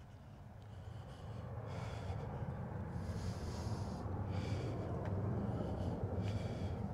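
A person breathing hard while walking, a breath every second or two, over a low rumble that grows louder over the first few seconds.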